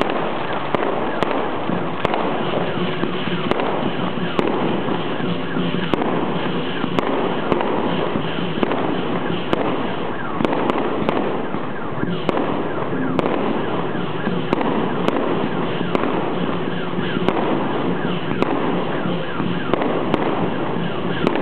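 Aerial fireworks going off overhead: sharp bangs every second or so over a continuous crackling din.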